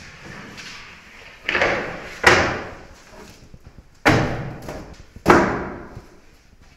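Four heavy thuds of wicker proofing baskets being knocked down onto a wooden bread peel as dough loaves are turned out, each dying away over about half a second.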